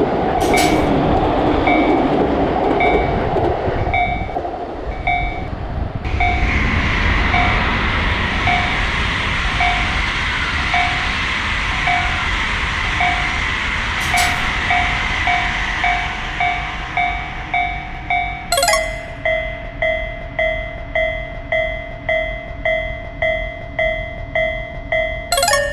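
Japanese railroad crossing warning bell ringing in a steady kan-kan rhythm while a train runs past, its rushing noise rising about six seconds in and fading near the end. At about three quarters of the way through, the bell switches abruptly to a slightly lower, more pulsing ring.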